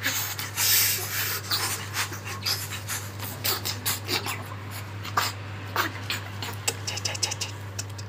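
Umbrella cockatoo flapping its wings and rustling its feathers close to the microphone, with a flurry of wing noise about a second in and then a scatter of short clicks and scrapes as it shuffles about.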